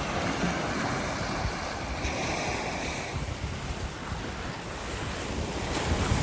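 Sea surf washing onto the beach: a steady rushing wash that swells around two seconds in and builds again near the end, with wind buffeting the microphone.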